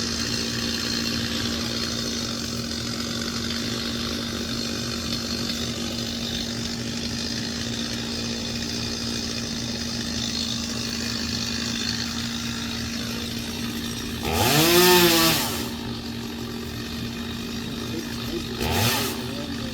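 A chainsaw revs up and back down twice: a longer burst about two-thirds of the way in and a short one near the end. Under it runs a steady engine hum.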